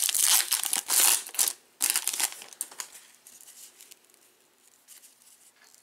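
Topps trading-card pack's foil wrapper crinkling as it is torn open, loud in uneven bursts for about the first three seconds. Then only faint rustling as the stack of cards is handled.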